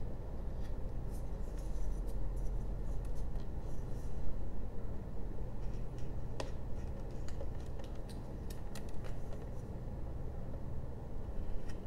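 Small carving knife paring fine detail cuts in basswood: light, scattered scraping ticks as thin slivers are shaved off.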